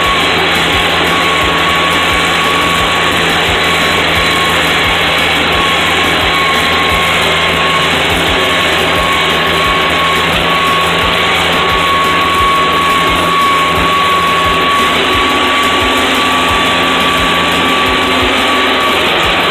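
Tractor engine running steadily under load, heard from inside the cab while it pulls a disc harrow, with a steady high whine over the engine noise.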